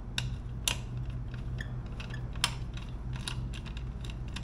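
Irregular sharp metal clicks of a wrench turning 10 mm nuts on a motorcycle, two of them louder, over a steady low hum.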